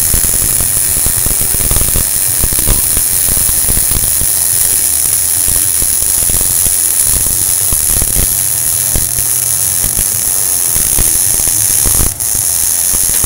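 Electric arc welding on diamond plate: a loud, steady crackling hiss from the arc. Near the end the arc breaks off for a moment and then restarts.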